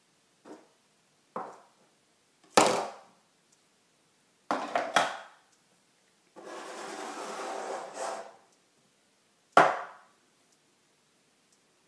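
A handful of sharp knocks, two of them loud, and a scraping rub lasting nearly two seconds between them.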